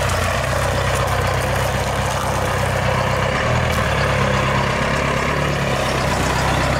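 1986 Ford F-350 pickup's engine idling steadily.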